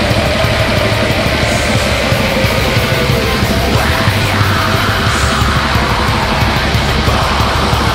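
Black metal recording: a loud, dense wall of distorted guitars and fast drumming, the low notes changing about halfway through.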